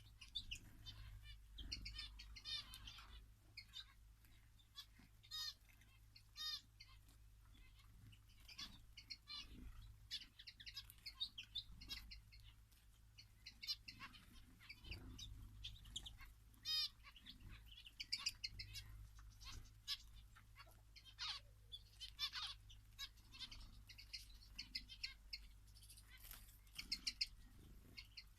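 Several small finches chirping and twittering in quick, scattered calls, with brief trills, many voices overlapping.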